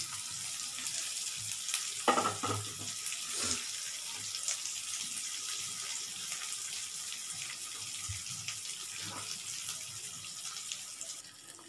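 Semolina-coated potato slices shallow-frying in oil in a nonstick pan: a steady sizzle with faint crackles, dropping away near the end.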